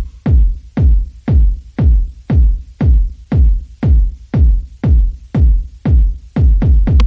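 Electronic dance music with a heavy, deep kick drum beating steadily about twice a second.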